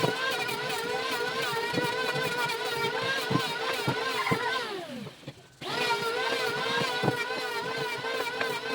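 Electric woodworking power tool's motor running at a steady high whine with scattered knocks. It is switched off about four and a half seconds in and winds down in falling pitch, then starts up again about a second later.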